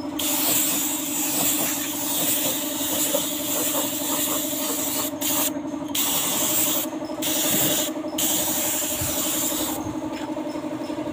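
Gravity-feed air spray gun hissing as it sprays clear coat onto a car fender, its trigger let go briefly about four times and released for good near the end. A steady low hum runs underneath.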